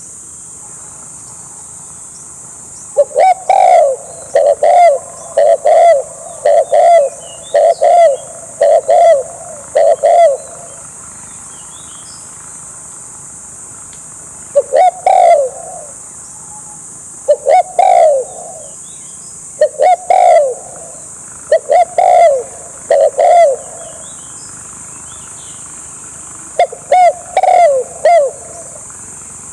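Spotted dove cooing: loud low coos in repeated phrases, a long run of about eight notes first, then shorter groups of two or three. A steady high-pitched hiss lies underneath.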